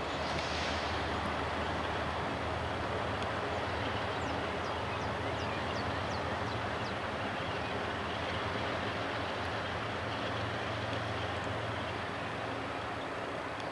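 BNSF diesel locomotives approaching at the head of a coal train: a steady engine drone under the rumble of the train.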